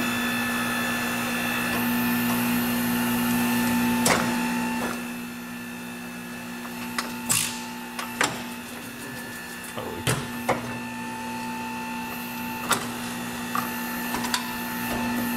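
Hunter Revolution tire changer's electric drive running steadily with a hum, turning the wheel as its mount heads work the new tire's beads onto the rim. A higher whine drops out and the machine gets a little quieter about four and a half seconds in, and several sharp clicks and knocks come from the tire and tools along the way.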